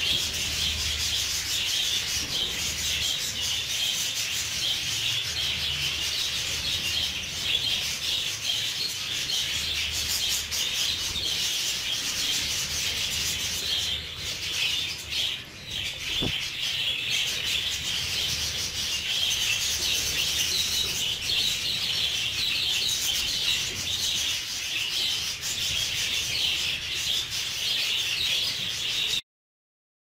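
A small group of budgerigars chattering and warbling in a dense, scratchy stream, with a short lull about halfway through. The sound cuts off abruptly near the end.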